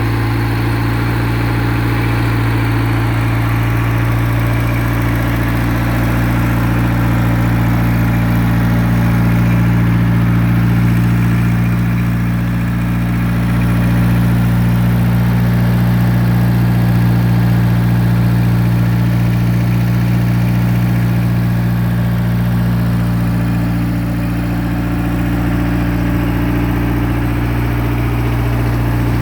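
The gas engine of a Target PRO 65 111 24-inch concrete saw running at a steady, even speed.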